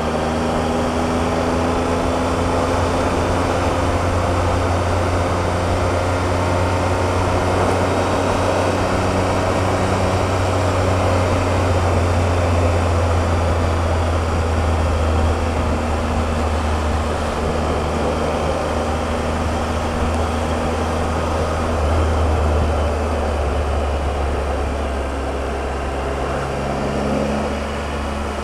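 Triumph Explorer's three-cylinder engine running at road speed, its pitch drifting gently up and down, over steady wind and road noise. It eases off slightly near the end.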